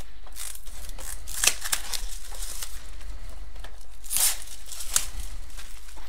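Clear plastic shrink wrap being slit and peeled off a cardboard box: a series of short crinkling, tearing rips, the loudest about a second and a half in and just after four seconds in.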